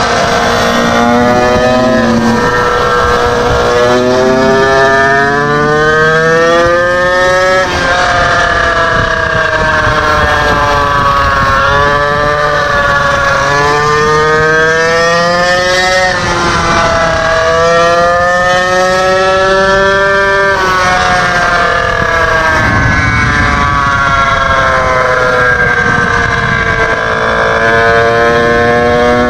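Small two-stroke engine of a gas stand-up scooter running under throttle, its pitch climbing steadily as it accelerates and then dropping sharply when the throttle is let off, three or four times over.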